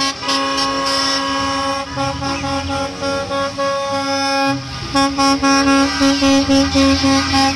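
School bus horns honking as the buses drive past. There are long blasts at first, then a string of short, quick toots from about five seconds in. Underneath is the low rumble of the buses' engines.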